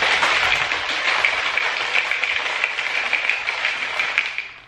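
Shaker cup of water and G Fuel powder being shaken, the liquid sloshing in a steady hiss that stops abruptly near the end.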